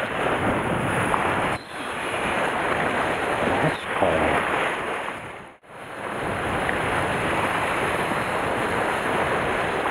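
Sea surf washing over rocks, with wind noise on the microphone: a steady rushing wash. It dips briefly about a second and a half in and drops out almost to silence for a moment about five and a half seconds in.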